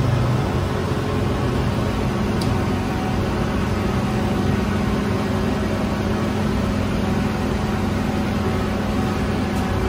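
Steady machine hum with an even rushing noise from a running gas-fired rotating bread oven.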